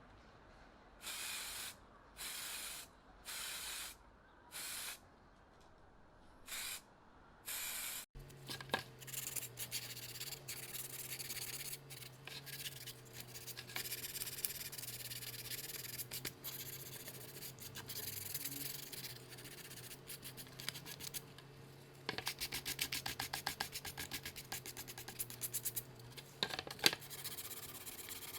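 About six short spray hisses, each about half a second long. After a cut, a steady low mechanical hum with continuous rubbing and scraping. A fast rattle of ticks runs through the last few seconds of the hum.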